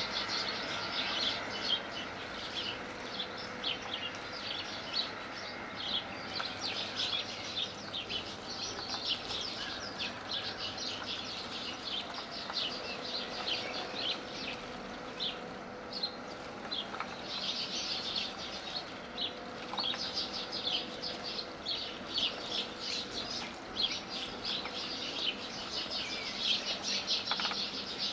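House sparrows bathing in a shallow dish of water: quick splashing and wing-fluttering in bursts of rapid flicks that come and go.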